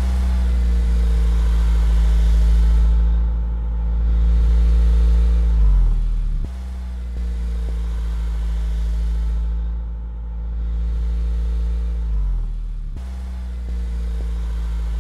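Heavy truck engine sound effect running steadily with a deep rumble. The same clip repeats about every six and a half seconds, its pitch sagging briefly before each restart.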